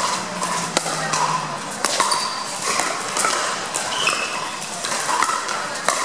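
Pickleball paddles striking a hard plastic pickleball in a rally: several sharp pocks, roughly one a second.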